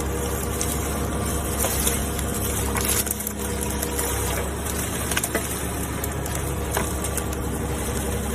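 Komatsu PC15R-8 mini excavator's diesel engine running steadily, with a few sharp metallic knocks every second or two.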